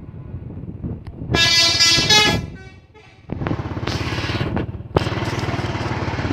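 Bus telolet horn blowing loud multi-tone notes about a second in, for about a second, over the engine. After a short lull the bus engine runs loud and steady through its jet exhaust, with a high hiss in the middle and a sharp click near the end.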